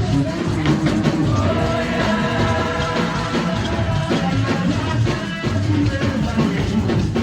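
Background music: an upbeat song with a steady beat and a singing voice.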